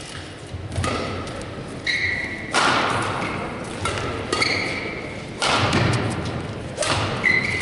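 Badminton rally: racket strings striking the shuttlecock several times, about one hit every one to two seconds, each with a short echo. Between the hits, players' shoes give short squeaks on the court floor, about three times.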